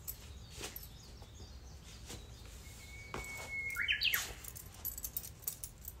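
Japanese bush warbler (uguisu) singing one 'hoo-hokekyo' phrase a little before halfway through. It is a long steady whistle followed by a quick flourish of rising and falling notes. Faint scattered clicks sound throughout.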